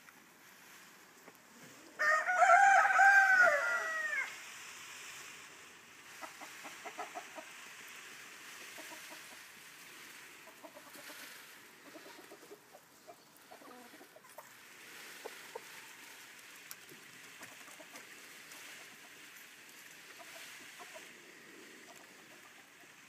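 Loud, drawn-out crow-like fowl call lasting about two seconds, starting about two seconds in, followed by soft intermittent clucking and faint scratching.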